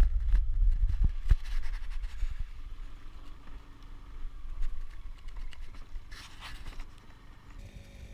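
Low wind rumble and handling noise from a hand-held action camera on a moving motor scooter, with scattered knocks and clicks, busiest in the first second or so.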